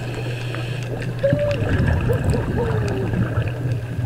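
Underwater sound picked up through a GoPro housing: a steady low hum with gurgling from a scuba diver's exhaled bubbles. A few short squeaky tones rise and fall in the middle.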